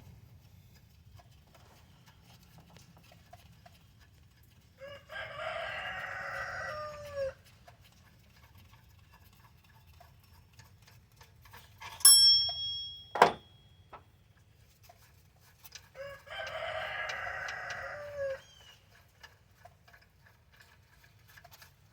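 Rooster crowing twice, about eleven seconds apart; each crow lasts about two seconds and ends in a falling note. Between the crows comes a sharp metallic clink that rings briefly at a high pitch, followed about a second later by a sharp click; these are the loudest sounds.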